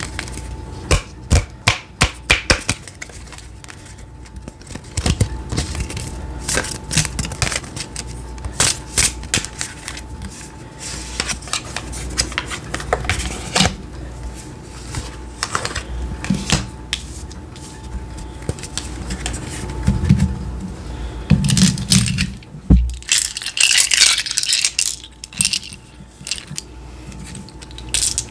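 Oracle cards and small curio markers handled on a table: scattered clicks, taps and rustles, with a denser run of clinking about three-quarters of the way through.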